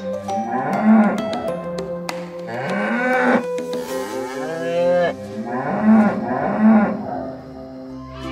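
Dairy cows mooing several times, one call after another, over light background music.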